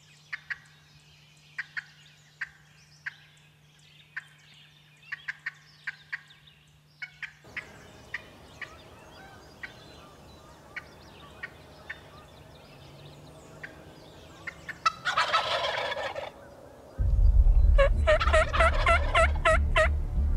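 Wild turkey gobblers calling: short, sharp calls scattered through the first half, then loud rattling gobbles in the last few seconds. A heavy low rumble comes in near the end, under the last gobbles.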